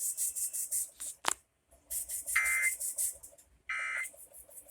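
Emergency Alert System end-of-message data tones over broadcast radio: three short, harsh digital buzzes a little over a second apart, mixed with choppy radio hiss and a sharp click about a second in.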